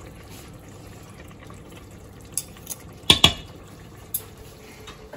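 Chicken curry gravy simmering in a pot with butter just added: a soft, steady bubbling. A few sharp clinks of a utensil on the pot cut through it, the loudest two about three seconds in.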